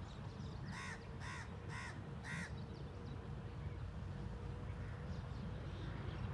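A crow cawing four times, about half a second apart, over the low rumble of a distant diesel locomotive that grows slowly louder as it approaches.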